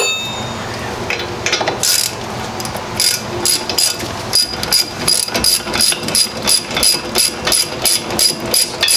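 Ratchet wrench clicking in short regular bursts, about two a second, with a few scattered clicks before the rhythm settles about three seconds in. It is threading in a brake caliper slider bolt on a 1991 Mazda Miata.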